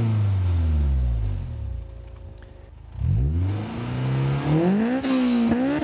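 Honda S2000's four-cylinder engine through a titanium catback exhaust, revved in place. The revs fall away steadily from high rpm toward idle, pick up again about three seconds in, and climb sharply in a throttle blip near the end.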